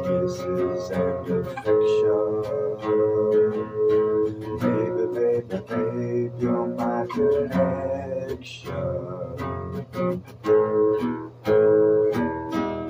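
Music led by an acoustic guitar, strummed and picked in a steady run of ringing chords.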